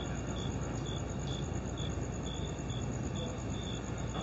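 Steady low outdoor background rumble, with a high chirp repeating about twice a second.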